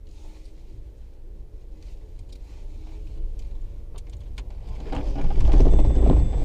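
Car engine rumbling and building up to a loud rev about five seconds in: the engine catching after a push start, since the battery was not the fault.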